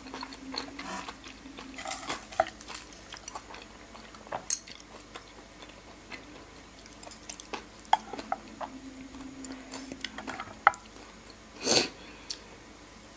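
Wooden chopsticks clicking and scraping against a spoon and a plate as food is picked up, with close-up wet chewing. There are scattered light ticks throughout, and one short, louder noise just before the end.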